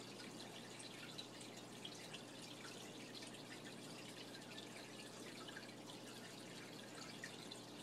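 Faint water trickling and dripping in a running aquarium: many small irregular drips and splashes over a low steady hum.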